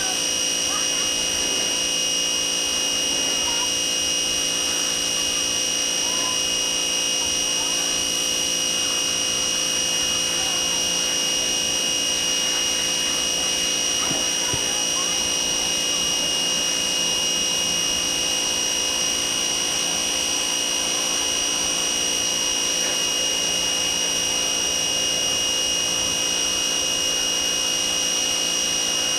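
Pressure washer running steadily, a continuous machine drone with a high, even whine over the hiss of the spray.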